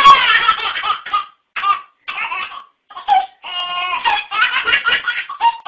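A baby laughing hard: high-pitched peals in about eight short bursts with brief breaks between them.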